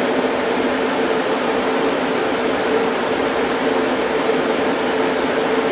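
Sun E10000 server's cooling fans running at a steady speed: an even, loud rush of air with a constant low hum underneath.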